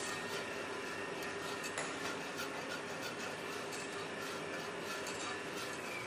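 Fakir stand mixer's electric motor running steadily, beating a sablée shortcrust dough in its steel bowl. It gives an even hum with faint clicks throughout.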